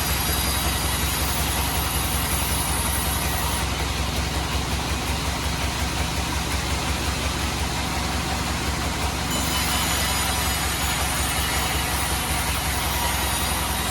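Bandsaw sawmill running steadily, sawing teak, with a low machine hum under a broad hiss. The high part of the hiss shifts about four seconds in and again near nine seconds.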